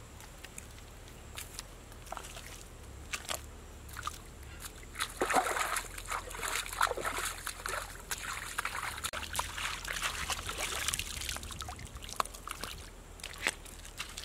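Hands sloshing and scooping in shallow muddy water, a run of wet splashes that starts about five seconds in and dies down a few seconds before the end, with a few scattered small clicks before and after.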